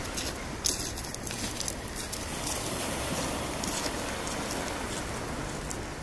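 Steady outdoor background noise with a low rumble and a few faint clicks about a second in; no distinct calls or other clear sound stand out.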